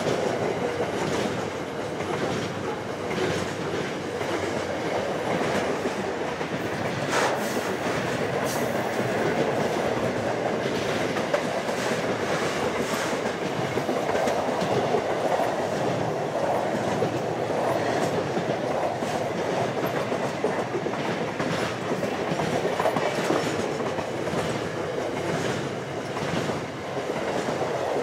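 Double-stacked container wagons of a freight train rolling past: a steady rumble of steel wheels on rail, with wheels clicking over rail joints.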